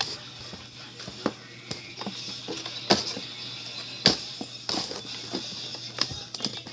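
Action figure's packaging being handled and opened by hand: scattered clicks and taps.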